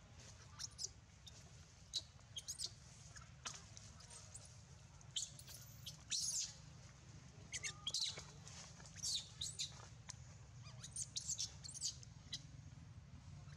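Baby macaque giving repeated short, high-pitched squeaks in irregular bunches, over a steady low hum.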